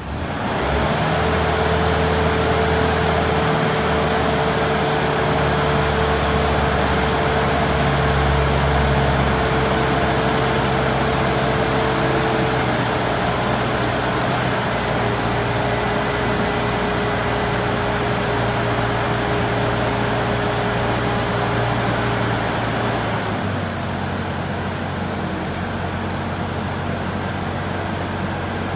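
Bobcat telehandler's diesel engine running at raised revs, with a steady hum, while the hydraulic boom lifts a full concrete skip. The engine revs up about half a second in and drops back to a lower steady speed about 23 seconds in.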